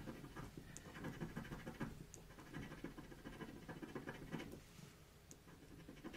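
Faint scratching of a coin rubbing the coating off a paper scratch card in quick, short strokes, easing off after about four and a half seconds.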